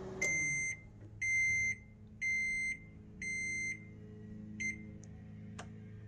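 GE Spacemaker II microwave oven's running hum cuts off and its control panel beeps four times, about one a second, signalling the end of the cooking cycle, with one short extra beep a second or so later.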